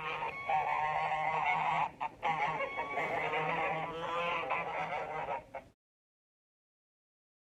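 Invented creature call made by layering recorded goose, snake, crow, ostrich and cassowary sounds: a run of goose-like honking calls for about five and a half seconds, with a brief break near two seconds, that cuts off suddenly into dead silence.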